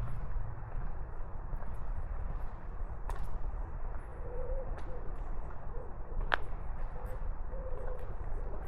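Outdoor ambience: a steady low rumble with scattered sharp ticks and taps, the loudest about six seconds in, and a few short, low wavering calls about halfway through and again near the end.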